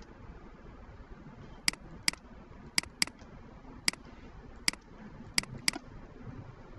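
Computer mouse button clicking about eight times, some as single clicks and some in quick pairs, while objects are picked and erased in a CAD drawing.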